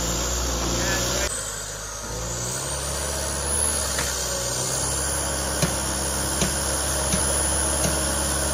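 Genie GTH-1056 telehandler's diesel engine running steadily, with four light knocks spaced a little under a second apart in the second half.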